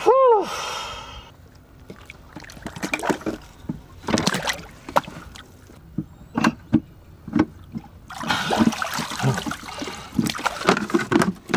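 Water splashing and sloshing around a snorkeller working in the water at a sailboat's stern, with irregular knocks and splashes that come thicker near the end. A short cry that rises and falls in pitch sounds right at the start.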